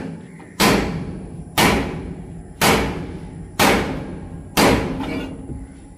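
Hammer blows on the steel shaft of a Swaraj combine harvester, driving a bearing onto it: five heavy strikes about a second apart, each ringing out briefly.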